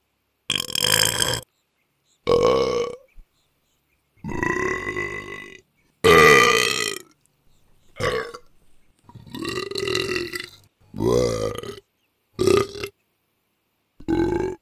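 A run of loud burps, about nine of them one after another, each up to about a second long, with dead silence between them. The loudest comes about six seconds in.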